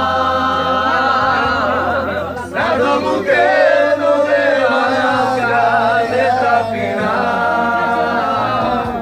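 Several voices singing long, wavering held notes in a slow song, with a short break about two and a half seconds in before the next phrase.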